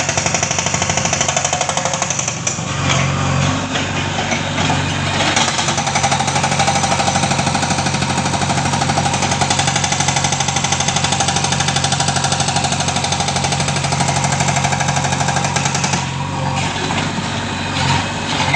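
Hydraulic breaker hammer on a JCB backhoe excavator pounding rock in a rapid, even rhythm over the machine's running diesel engine. The hammering stops about 16 seconds in, leaving the engine running.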